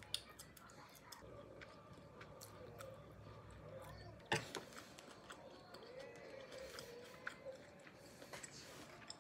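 Faint murmur of distant voices with scattered small clicks and taps, one sharper click about four seconds in.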